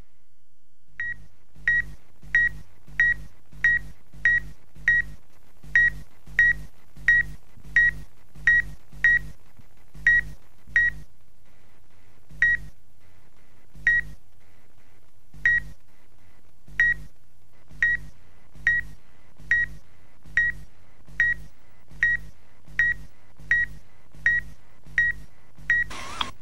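A run of short electronic beeps, each one a tone of a single pitch with a low thump beneath. They repeat about once or twice a second at uneven intervals, with longer pauses about halfway through, over a faint steady hum.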